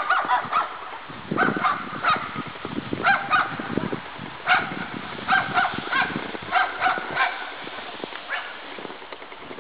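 A series of short honking animal calls, a dozen or more, irregularly spaced and fading out near the end, with soft crunching footsteps in snow between about one and four seconds in.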